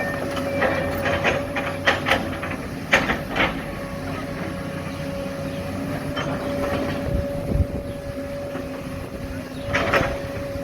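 Excavator engine running steadily with a constant whine, and several sharp metallic clanks and knocks, in a cluster in the first few seconds and again near the end, as the machine works loading coal.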